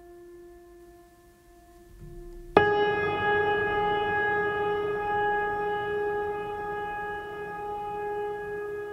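Background music made of long held notes. A soft sustained tone, then about two and a half seconds in a sudden louder held note with a rich set of overtones comes in and slowly fades.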